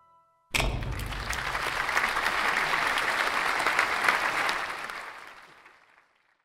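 Audience applauding, breaking out suddenly about half a second in as the song's last held chord stops, then dying away over the final second or two.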